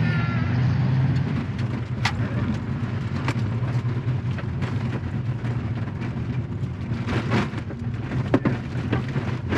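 Mazda 2's engine running steadily while driving on a loose rallycross surface, with a spatter of gravel against the car and several sharp knocks, the loudest near the end. The engine has developed rod knock.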